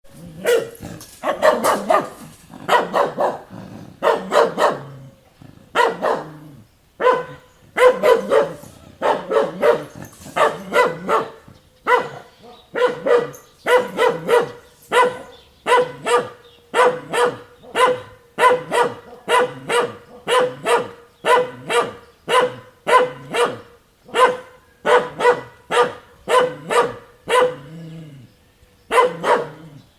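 A dog barking over and over in quick clusters of short, pitched barks, with only brief pauses between them.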